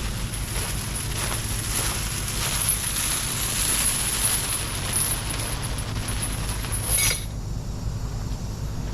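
A steady low engine hum under a hiss, and the hiss cuts off suddenly with a click about seven seconds in.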